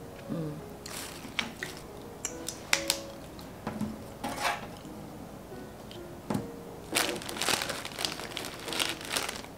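Bakery bread packaging crinkling and rustling on and off as it is handled, with faint background music underneath.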